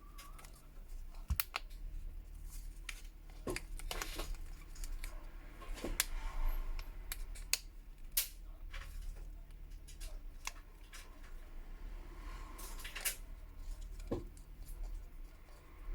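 Plastic back cover of an LG K10 smartphone being pried off, with a run of sharp irregular clicks as its clips let go and a few longer scraping stretches of tool and plastic against the frame.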